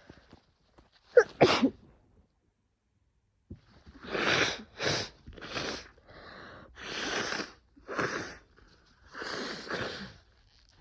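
A person with an oncoming cold sneezes once, sharply, about a second in. From about three and a half seconds come eight or so short, forceful breathy bursts in quick succession.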